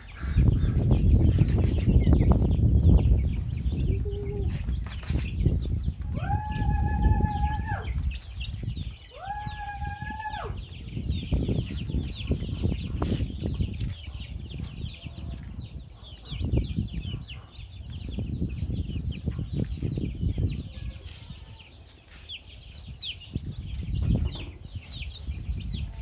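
Young chickens peeping continuously with quick high calls while they feed, over a low rumbling noise that is loudest in the first few seconds. About 6 and 9 seconds in come two long steady tones, each about a second and a half.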